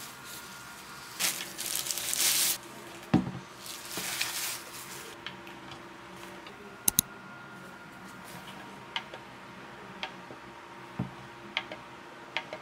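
Hands handling a Govee StarPal Pro lamp and its packaging: rustling in the first few seconds, then a sharp double click about seven seconds in and a few light taps of the clear shade against the lamp base, over a faint steady room hum.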